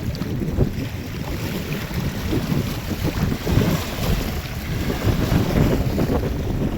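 Sea waves and wind, with wind buffeting the microphone as a loud, uneven low rumble.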